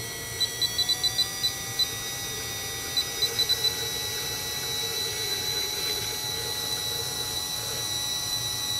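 An RC transmitter beeping on each button press, in two quick runs of short high beeps, over the steady whine of a small electric smoke-oil pump. The pump's pitch creeps up slightly as its top speed is turned up in the radio.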